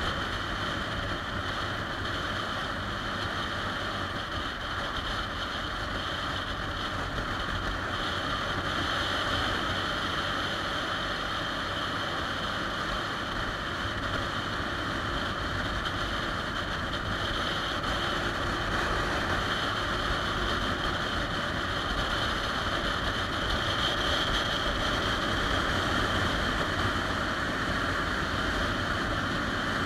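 Steady wind rush on the microphone of a moving motorcycle, with the 2013 Triumph Rocket 3 Touring's engine running underneath at an even cruising speed.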